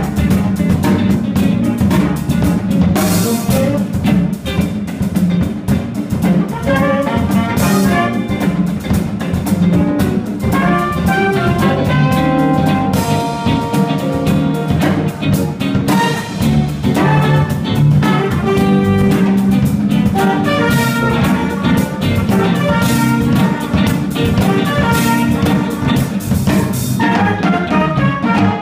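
Live jazz-funk band playing: a trumpet takes the lead line over drum kit, keyboard and saxophone, with a steady beat.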